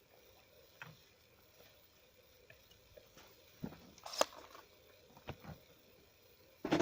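A few short, scattered knocks and handling noises at irregular intervals, the loudest about four seconds in, over a quiet background.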